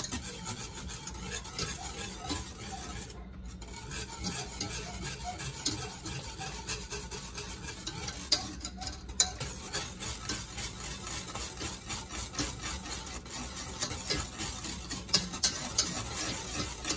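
A wire whisk is stirring thick barbecue sauce in a stainless steel saucepan, its wires scraping and ticking against the pan as oil is whisked in. There are short pauses about three and nine seconds in.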